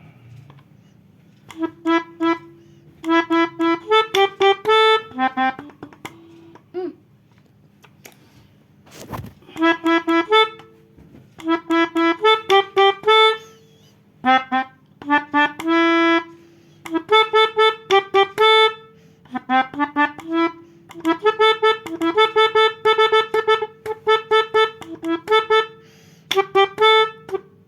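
Melodica (pianika) playing telolet bus-horn tunes: phrases of quick repeated short notes, with short pauses between the phrases.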